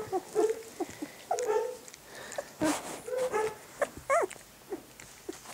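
Young puppies whimpering and squeaking in a string of short cries, one rising higher about four seconds in, with a few soft knocks among them.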